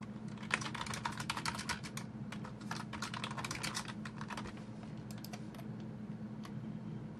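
Typing on a computer keyboard: a quick run of keystrokes for about four seconds, then a few scattered key presses, over a steady low hum.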